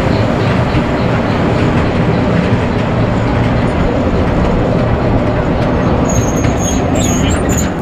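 Small amusement-park kiddie train rolling along its track, heard from on board as a steady, loud rumble and rattle. A thin, high squeal joins in near the end.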